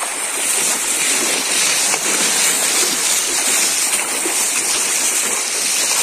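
Swollen, muddy jungle stream rushing steadily.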